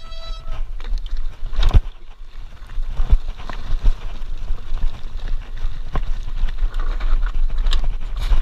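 Trek mountain bike rolling over a loose, rocky gravel trail: a steady low rumble from the tyres and frame, with sharp knocks and rattles as the wheels hit rocks.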